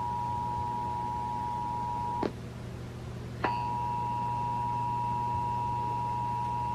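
Emergency Alert System attention signal from a radio: the steady two-tone alarm. It cuts off with a click about two seconds in, drops out for about a second, then comes back with another click, joined by a fainter, higher steady tone.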